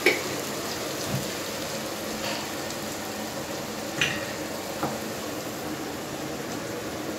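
Tomato and spice masala frying in oil in a non-stick frying pan, a steady sizzle, just after red chilli powder has gone in. A few light knocks sound over it.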